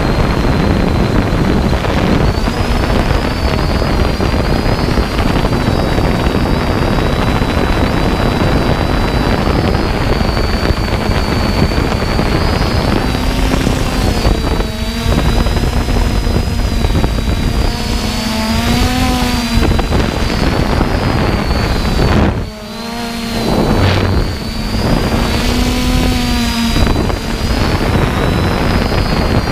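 3D Robotics Iris+ quadcopter's brushless motors and propellers whining in flight, heard from the onboard camera with heavy wind noise on the microphone. The motor pitch wavers throughout and rises and falls several times in the second half, with a brief dip in level a little past the middle.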